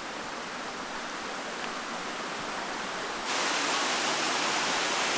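Creek water rushing over bedrock and down a cascading waterfall, a steady hiss that gets suddenly louder about three seconds in.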